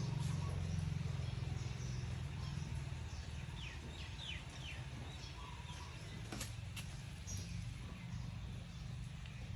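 Faint short high chirps, with several quick falling ones about four seconds in, over a low hum that fades away during the first few seconds; two light clicks near the middle.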